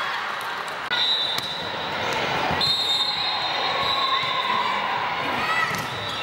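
Echoing sports-hall din during a volleyball game: a few sharp thuds of the ball being struck, sneakers squeaking on the hardwood court near the end, and background voices, with a steady high-pitched tone through most of it.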